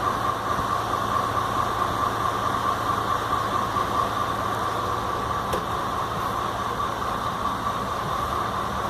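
Steady mechanical running noise with a constant hum, even and unchanging throughout.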